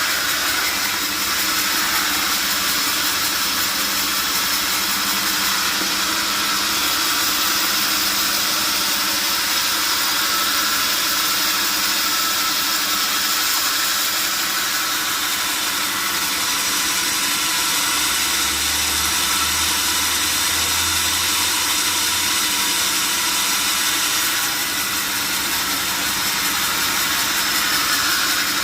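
Sawmill machinery running steadily: a continuous mechanical hiss-like noise with a faint low hum underneath, holding level without pauses.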